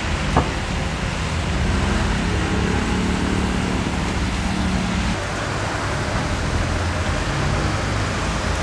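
City street traffic on a rain-wet road: cars and buses pass with a steady tyre hiss and low rumble. A passing vehicle's engine hums from about two to five seconds in. There is one short click near the start.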